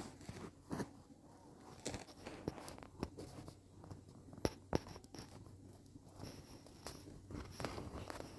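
Scattered sharp clicks and crunches at uneven intervals, the loudest pair about four and a half seconds in, over a faint low hum.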